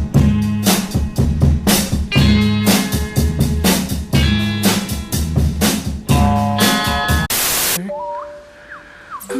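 Loud music with a heavy, regular drum beat and guitar. It cuts off about seven seconds in into a half-second burst of hiss, followed by quieter held tones and a few short sliding whistles.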